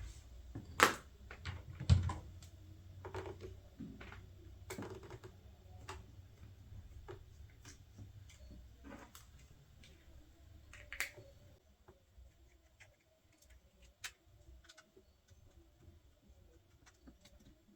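Small screwdriver clicking and scraping on the tiny screws and plastic casing of a feature phone as the screws are undone: scattered light clicks, two louder ones in the first two seconds, growing fainter and sparser in the second half.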